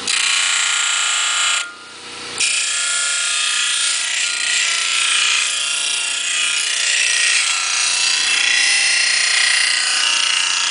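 Homemade 15-inch disc sander with a 1.5 hp electric motor and a 100-grit disc, sanding a workpiece pressed against the spinning disc: a loud, rasping hiss over a steady motor whine. The grinding drops away briefly about two seconds in, then resumes.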